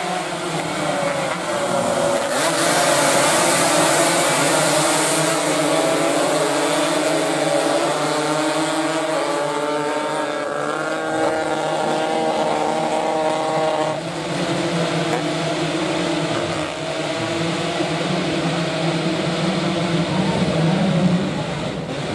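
A pack of small road-racing motorcycles running hard at high revs, several engines overlapping, their pitches climbing and dropping as they accelerate, shift and brake. A burst of hiss joins in for a few seconds about two seconds in.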